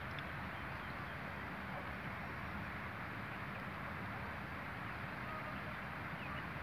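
Faint, steady outdoor background noise with no distinct events, and a few faint, short, high sounds here and there.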